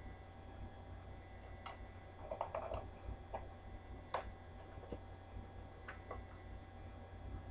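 Faint handling noises: a few light clicks and taps from a cereal bowl with a spoon and a paperboard milk carton being opened, the sharpest click about four seconds in, over a steady low hum.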